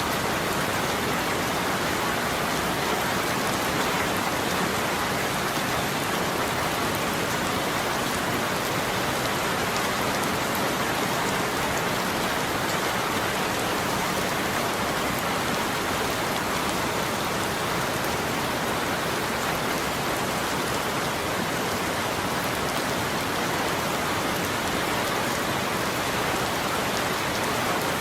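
Steady rain falling, an even hiss of drops on a surface with no breaks or thunder.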